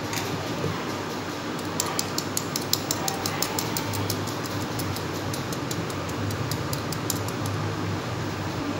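Flour being sifted through a stainless steel mesh sieve, the sieve tapped and shaken: a run of quick light metallic taps, several a second, from about two seconds in to about seven seconds in.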